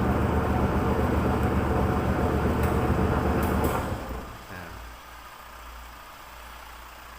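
Washing machine's wash motor running with a steady electric hum, then cutting out about four seconds in, leaving only a faint hum: the timer's pause between directions, a sign that the replaced timer now makes the machine reverse.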